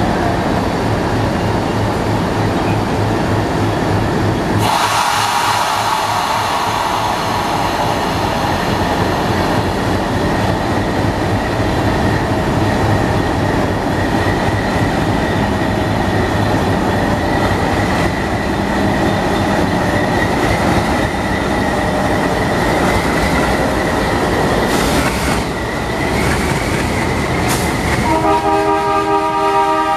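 ALCO WDM-3A diesel locomotive running at the head of a passenger train. About five seconds in it throttles up, and a steady high whine sets in as it pulls away. Near the end its horn sounds, a held chord of several tones, as it passes close by.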